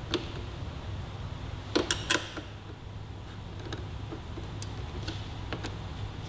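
A few short metal clicks and ticks from a hand wrench on an extension as it tightens the muffler's rear mounting bolt, a small cluster about two seconds in and single ticks after, over a steady low hum.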